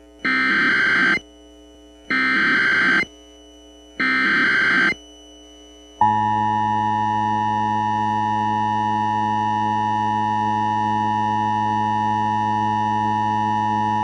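Emergency Alert System signalling: three bursts of SAME header data tones, each about a second long and a second apart, then from about six seconds in the steady two-tone EAS attention signal (853 and 960 Hz sounded together).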